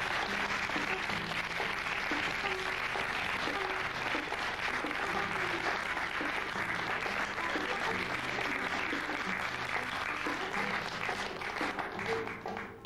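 Studio audience applauding steadily over soft background music; the applause dies away near the end.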